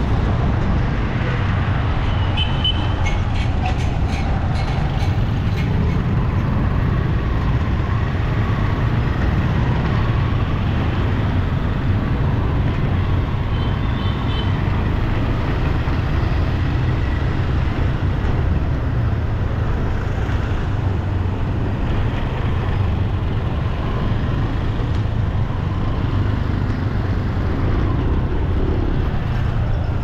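Steady road traffic noise: a continuous rumble of passing vehicles, with a few faint clicks early on.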